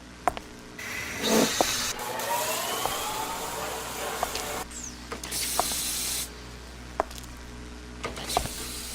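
Three long bursts of hissing noise with scattered sharp clicks between them. A faint rising whine runs under the first burst.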